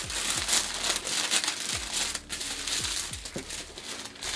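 Tissue paper and packaging crinkling and rustling as they are unwrapped by hand, in short, irregular rustles.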